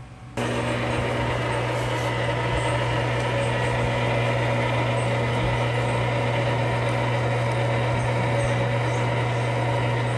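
Metal lathe running steadily while a long-extension boring bar takes a fine, slow cut inside a welded steel pipe. The machine sound starts abruptly about half a second in and holds an even hum.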